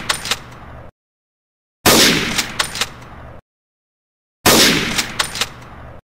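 Sniper rifle shot sound effect, played three times: the tail of one at the start, then two more at about two and four and a half seconds in. Each is a sudden loud crack that dies away, with a few sharp clicks close behind, and is cut off abruptly.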